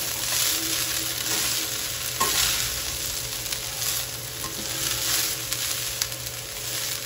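Spatula stirring cooked rice through cumin seeds in a hot pan with oil and ghee: scraping strokes about once a second over a light sizzle of frying.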